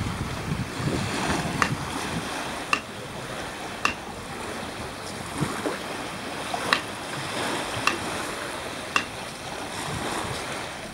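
Small sea waves lapping on a sandy shore with a steady wash and some wind on the microphone. Sharp clicks come roughly once a second over it.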